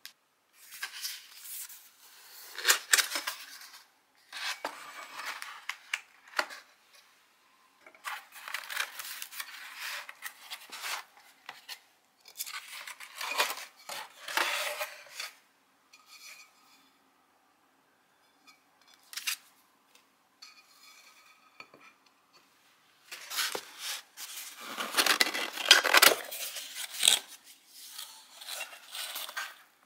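Cardboard box flaps and paper packing rustling and scraping in short bursts as porcelain dishes are unpacked, with light knocks of the porcelain against cardboard and the table.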